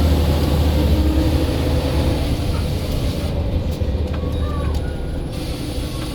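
Scania L94 bus engine running with a steady low drone and a steady whistle from the turbocharger over it, both easing off slowly.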